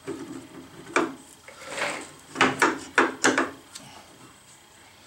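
Metal clunks and a scrape as a ball screw end plate is pushed and seated against a lathe's cross slide: one sharp knock about a second in, a sliding rub, then a quick run of four knocks.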